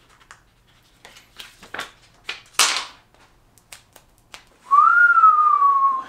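Clear protective film being handled and its backing peeled off: small clicks and short crinkly rustles, the loudest about two and a half seconds in. Near the end a person whistles one long note that rises slightly and then slowly falls; this is the loudest sound.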